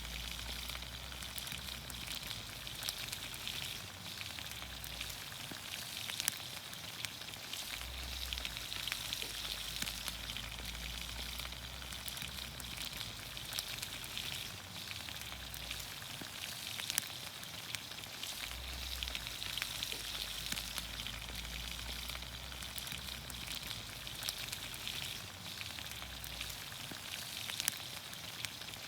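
Green beans, onions, carrots and potatoes sizzling in olive oil over a campfire: a steady hiss with scattered small pops.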